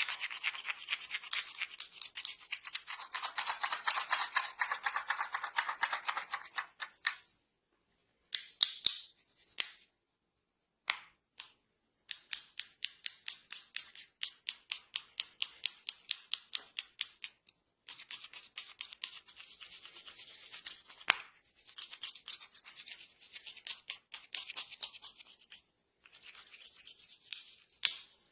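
Hands rubbing and scratching over hair and scalp during a head massage, in quick regular strokes with a few short pauses.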